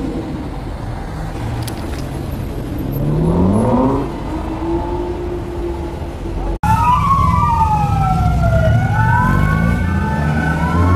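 Sports-car engine revs up briefly about three seconds in. After an abrupt cut a little past halfway, the Alfa Romeo 8C Competizione's V8 rumbles at low speed while a siren wails over it.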